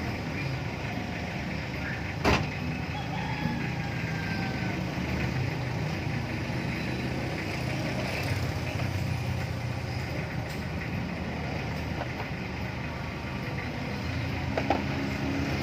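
Steady background noise with a low hum, broken by one sharp knock about two seconds in and a fainter click near the end.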